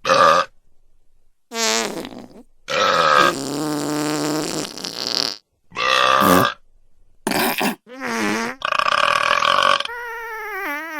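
A quick run of fart and burp sound effects, about eight separate ones with short gaps between them. Most are short; one a few seconds in drags on for over two seconds. Several have a wavering pitch.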